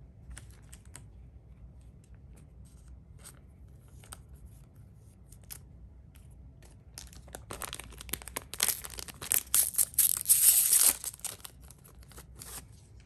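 Light rustles and clicks of trading cards being handled, then about seven seconds in a Cardfight!! Vanguard booster pack's foil wrapper is torn open, a loud crinkling tear lasting a few seconds.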